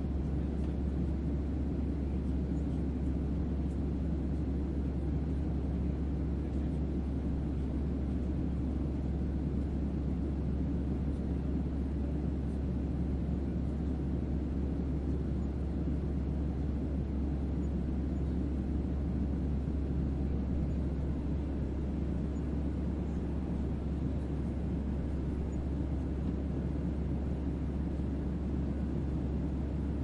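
Passenger jet cabin noise in flight: a steady, even low rumble of engines and airflow with no distinct events.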